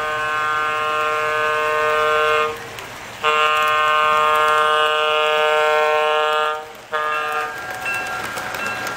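Model diesel locomotive's electronic sound-system horn blowing two long blasts and a short one, each a single steady tone. After the horn stops, the model train rolls along the track.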